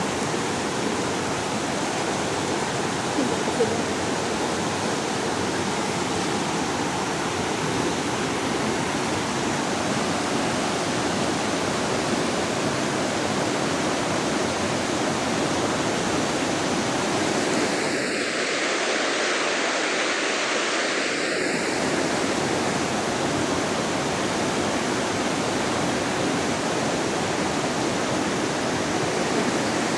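Steady rush of flowing water, an even noise without pause.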